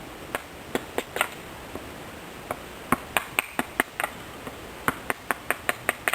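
Irregular sharp ticks and taps, a few a second and varying in strength, over a faint steady hiss.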